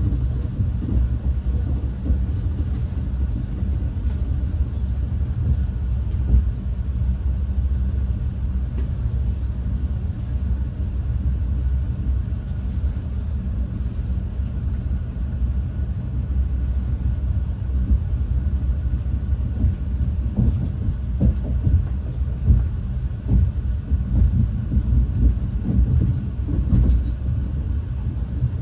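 Renfe class 130 (Talgo 250) high-speed train running along the line, heard from on board as a steady low rumble that turns more uneven, with short jolts, in the second half.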